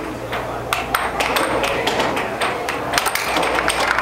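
Irregular sharp clacks of air hockey pucks and mallets striking, several a second, over the steady low hum of an air hockey table's blower.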